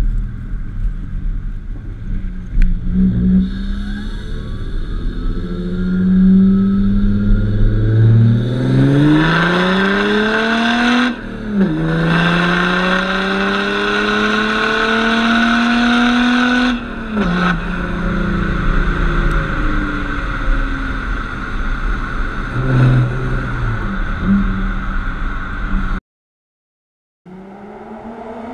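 Tuned Audi A5 3.0 TDI V6 diesel heard at its tailpipes under hard acceleration. The pitch climbs, breaks briefly for a gear change, climbs again, and breaks for a second shift. It then runs steadily with wind rushing past, before the sound cuts out for about a second near the end.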